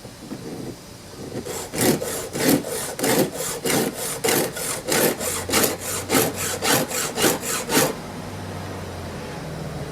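A hand file being stroked across a chainsaw chain's cutter, sharpening it. About a dozen even, rasping strokes, one a little more than every half second, start about a second and a half in and stop near the end.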